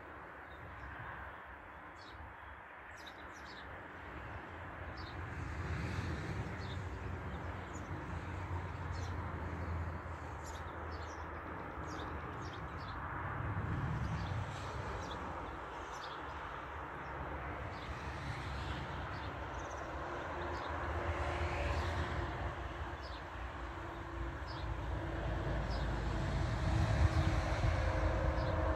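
Outdoor ambience: small birds chirping now and then over a low rumble that swells and fades, with a faint steady hum joining about two-thirds of the way through.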